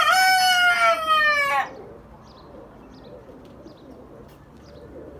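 A rooster crowing: one long, loud crow that falls slightly in pitch and ends about a second and a half in.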